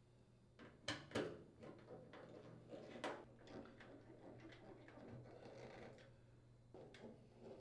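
Faint clicks and scraping of screws being threaded and tightened by hand with a screwdriver into a washer's sheet-metal rear panel, with two sharper clicks about a second in.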